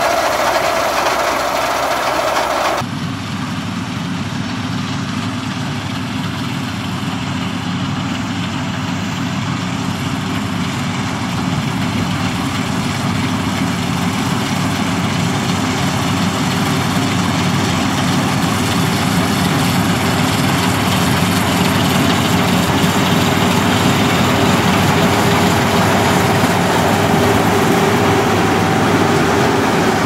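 Rice combine harvester's engine and threshing machinery running steadily, at first while the unloading auger pours out grain. About three seconds in the sound changes abruptly, and from then on the harvester at work in the field grows gradually louder as it comes closer.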